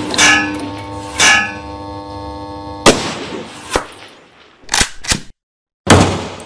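Produced intro sound effects: a run of sharp gunshot-like cracks and metallic hits, like bullets striking steel. The first two leave a ringing metallic clang that lasts a couple of seconds. Then come a few quicker clicks and one last loud hit near the end.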